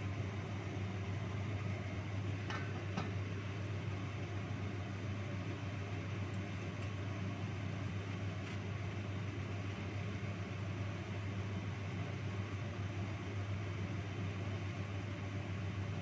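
Steady rumble and hiss of a gas stove burner heating a covered wok of simmering broth, with a couple of light clicks about two and a half to three seconds in.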